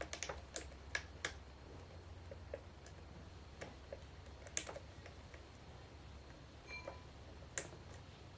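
Small irregular metallic clicks of a hook pick and tension wrench working the pins of an American Lock 5200 padlock. There is a quick run of clicks at first, then scattered sharper clicks, and a brief metallic ring shortly before the last loud click.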